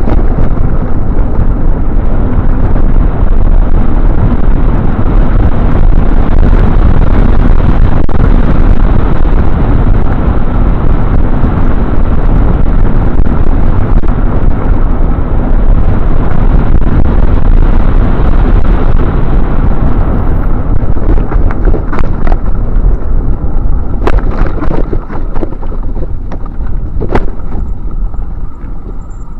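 Heavy wind buffeting on the microphone of a camera carried on a moving bicycle: a loud, continuous rumble. It eases near the end, where a few sharp clicks and rattles come through.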